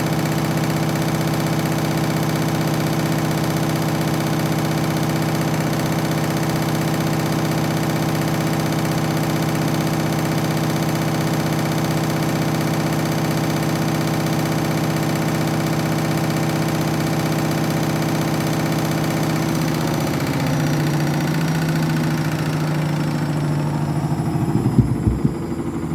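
Washing machine on its final spin with a heavily out-of-balance load, the motor and drum running at a steady high speed. About twenty seconds in the pitch drops slightly and the sound turns rougher, with a few knocks near the end.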